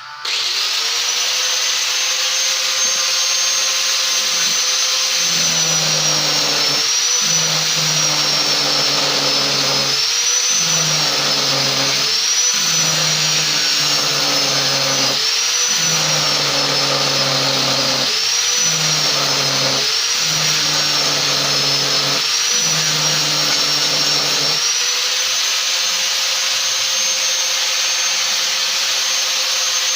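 Angle grinder with an abrasive disc switched on and running free, then grinding metal tubing in about eight passes of a couple of seconds each. The motor whine dips in pitch each time the disc bites. Near the end it runs free again.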